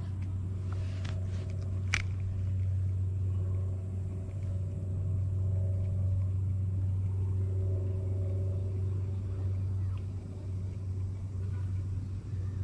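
Steady low hum from the moving kayak's drive, with one sharp click about two seconds in.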